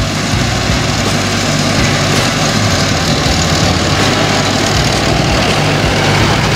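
Kubota farm tractor's diesel engine running steadily as the tractor drives up a grassy slope and passes close by.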